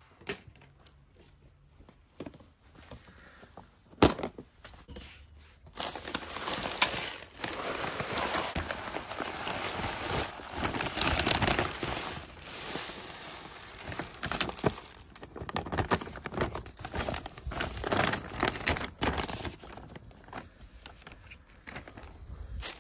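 Granular succulent potting mix poured from a plastic bag into a plastic tub: a dense rattling hiss of grit, mixed with the bag crinkling. It starts about six seconds in and dies down around twenty seconds, after a single sharp click about four seconds in.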